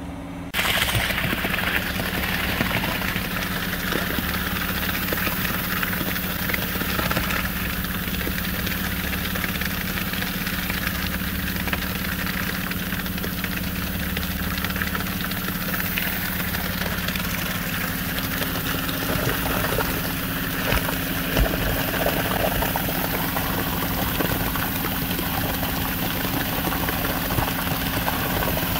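Concrete mixer truck's engine running steadily while it discharges concrete down its chute into a post hole.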